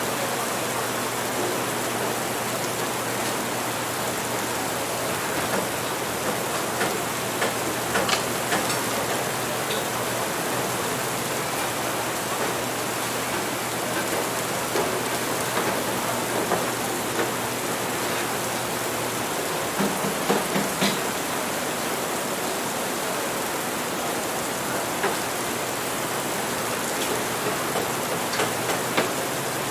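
Steady rain, mixed with a few short clinks and knocks of café crockery now and then, a cluster of them about two-thirds of the way through.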